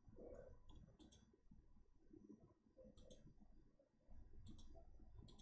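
Faint computer mouse clicks, several in quick pairs like double-clicks, over near-silent room tone.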